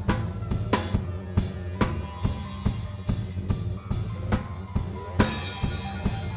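Live band music: a steady drum-kit beat of kick and snare, about two hits a second, over a sustained bass line, with electric guitar.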